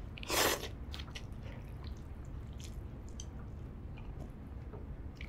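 A man slurping noodles off chopsticks in one loud, wet slurp about half a second in, then quiet eating with small clicks and ticks.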